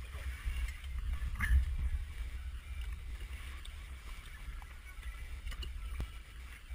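Low steady rumble with a few light clicks and knocks as parts are handled in a jet ski's engine bay.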